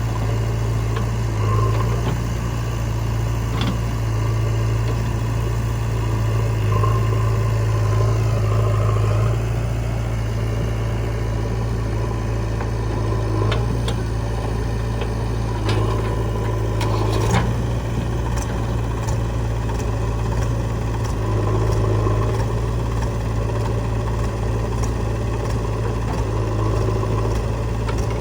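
Heavy diesel engine running steadily near idle, its note swelling slightly now and then, with a few sharp knocks about halfway through.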